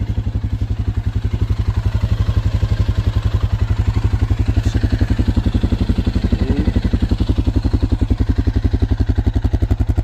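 2008 Suzuki KingQuad 750 AXi ATV's single-cylinder four-stroke engine idling steadily through its stock exhaust, an even, rapid pulse of about a dozen beats a second.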